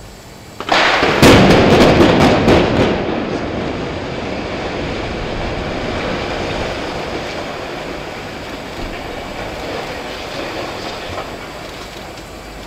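Explosive demolition of a 12-storey tower block: about a second in, a rapid string of sharp blasts from the charges, then the rumble of the building collapsing, slowly fading.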